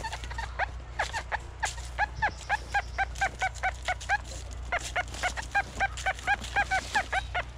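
An animal calling: a quick run of short, repeated pitched notes, about three a second, with a brief break about four seconds in.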